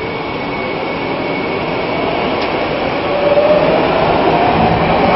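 A subway train running, heard from inside the carriage: a steady rumble and rush of wheels and air that slowly grows louder, with a faint whine rising gently in pitch over the second half.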